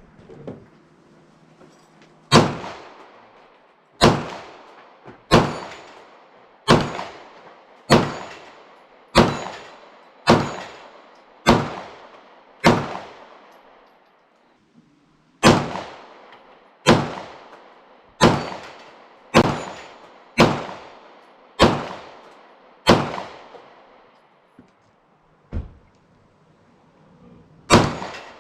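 Kel-Tec PMR-30 .22 Magnum pistol firing single shots at a slow, steady pace, about one every 1.2 seconds, each sharp crack trailing off in echo, with a short pause about halfway through. The rounds, .22 Magnum cartridges kept five years in a car trunk, are going off normally.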